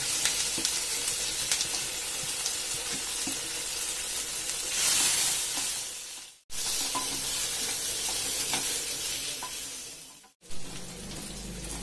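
Marinated taro root (colocasia) frying in hot oil in a kadai, a steady sizzle that swells louder about five seconds in. The sound fades out and cuts back in twice.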